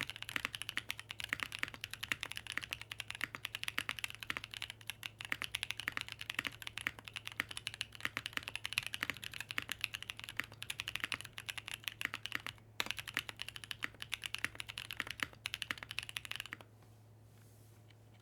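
Fast, continuous typing on a Monokei Tomo mechanical keyboard with Cheesecake tactile switches (POK housings, LY stems) in a top-mounted aluminium plate, with GMK keycaps. There is a brief pause about two-thirds through, and the typing stops about a second and a half before the end, leaving a faint steady low hum.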